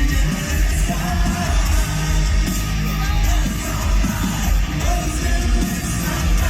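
A live heavy metal band playing loud, with a singer's yelled vocals over the band.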